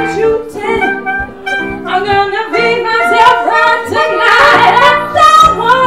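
A woman singing a jazz song into a microphone, accompanied by live piano.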